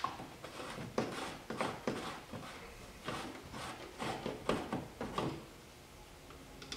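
An oil dipstick being worked into and out of the filler tube on a Polaris Sportsman 500 ATV to check the oil level: a string of short scrapes and knocks of metal and plastic, with a quiet pause near the end.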